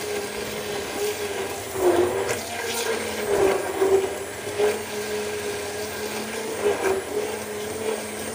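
Electric hand blender running steadily in a steel pot of milk with sugar and instant coffee powder, whisking it to a froth. The motor hum wavers slightly, with a few brief louder swells as the blade moves through the liquid.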